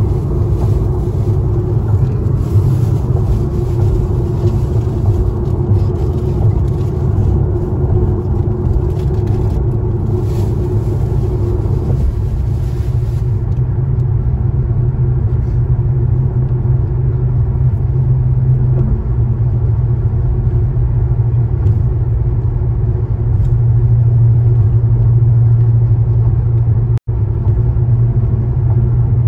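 Car cabin road and engine noise while driving on a highway: a steady low rumble, cut off for an instant near the end.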